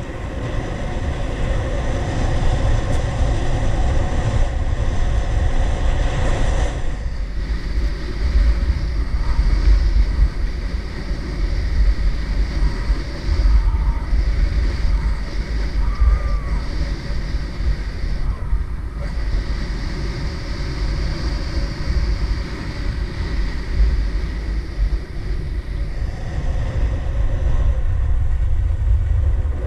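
Wind buffeting the microphone of an action camera worn by a skier going downhill, a loud, gusty rumble, under the steady hiss and scrape of skis sliding on packed groomed snow.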